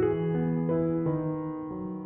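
Background music: a soft piano melody with held bass notes.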